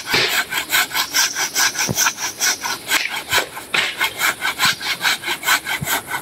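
Hand saw cutting into a tree trunk, rasping back and forth in quick, even strokes of about four or five a second.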